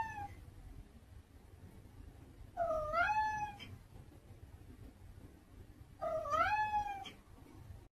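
Domestic cat meowing: the end of one meow right at the start, then two more about three seconds apart, each short and rising in pitch.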